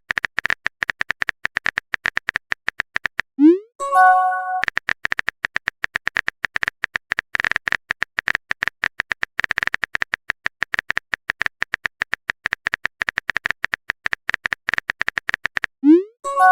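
Rapid phone-keyboard typing clicks, several a second, broken about three and a half seconds in by a short rising swoosh and a brief chime, a message-sent sound effect, which comes again near the end.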